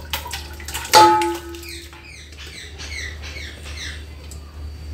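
Metal cooking pots clanking as mutton gravy is scraped from a pressure cooker into a second pot: one sharp metal knock that rings on for about a second, about a second in, then a run of short squeaky scrapes of a spoon against the metal.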